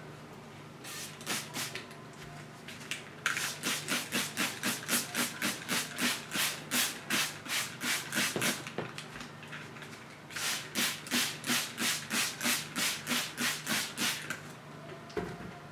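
Plastic trigger spray bottle squirting water onto paper towels in quick, even squirts of hiss, about three a second. A few squirts come about a second in, then two long runs with a short break between.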